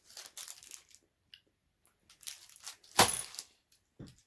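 Short handling noises: a few soft rustles and clicks, with a louder knock about three seconds in.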